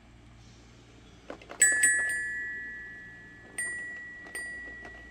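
Toy key-played xylophone struck by a cat's paw: a few faint key clicks, then four ringing high metal notes that slowly fade, two in quick succession about a second and a half in and two more spaced out later.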